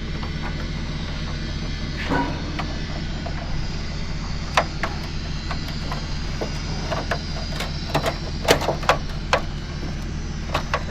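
A steady low hum, with scattered sharp clicks and knocks, most of them in the second half.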